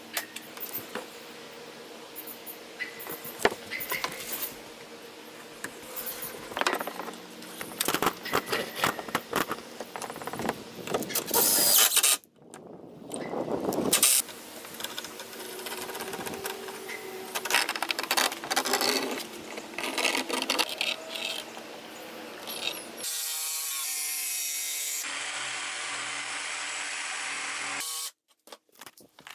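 Irregular knocks and clatter of hands-on work on a small wooden-keeled boat, then a cordless drill-driver running steadily for several seconds near the end, driving screws through a wooden keel board into the hull.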